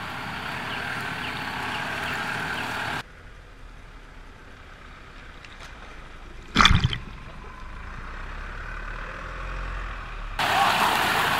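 Off-road 4WD vehicle running, with one sharp knock about six and a half seconds in. The sound drops off abruptly about three seconds in to a low rumble and comes back louder near the end.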